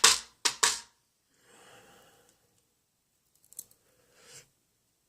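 A quick run of sharp clicks in the first second, then fainter small ticks and rustles: small metal lock parts and tools being handled while a dimple lock's pins are taken out.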